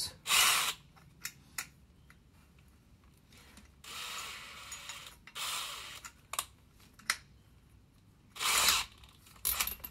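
A cordless drill with a hole saw in its chuck, run in several short bursts of about half a second each and one longer, softer run, with small clicks between them.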